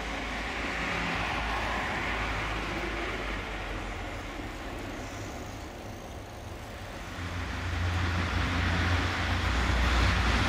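Road traffic on a street: a passing vehicle's tyre noise swells over the first couple of seconds and fades away, then a low rumble builds over the last few seconds.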